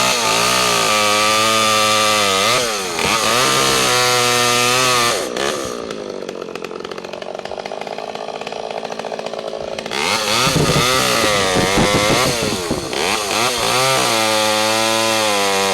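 Two-stroke chainsaw at full throttle with brief dips in engine speed, falling back to idle about five seconds in and revving up again about ten seconds in, as it test-cuts wood with a freshly sharpened chain.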